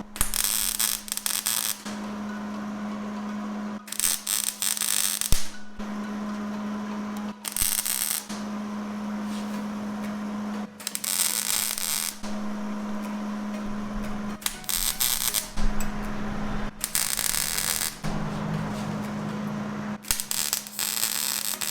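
Wire-feed (MIG) welder arc crackling in seven short bursts of one to two seconds each, as the trigger is pulled and released to weld sheet-metal pieces onto a steel rod. A steady hum fills the pauses between bursts.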